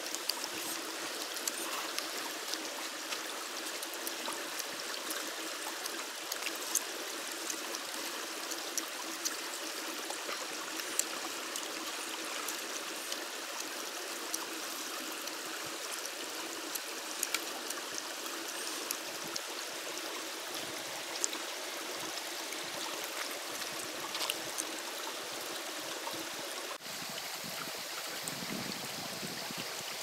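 Shallow rocky stream running steadily, an even rush of water with scattered small clicks over it.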